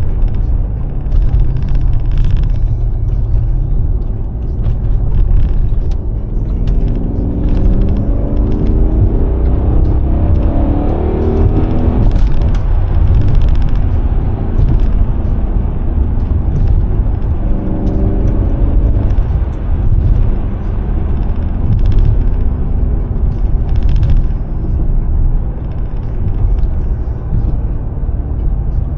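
Mercedes-AMG S63's V8 engine pulling under way, a deep steady rumble whose pitch rises as the car accelerates about seven seconds in and again at about seventeen seconds.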